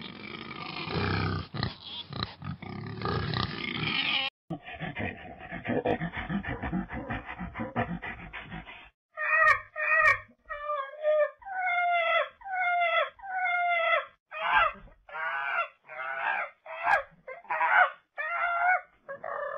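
A babirusa grunting for the first nine seconds or so, then a proboscis monkey giving a run of short pitched honking calls, about one a second.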